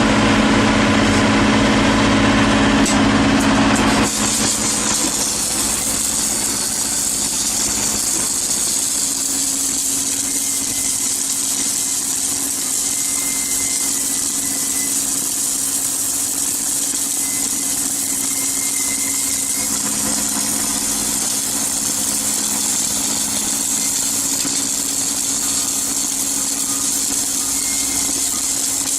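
Steady machine hum with a high hiss, changing abruptly about four seconds in to a slightly quieter steady hum.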